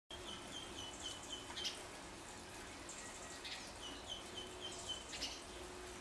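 Small birds singing and chirping. Two runs of short, evenly spaced notes at one pitch, about four a second, come early and again near the end, with a few sharp chirps between them.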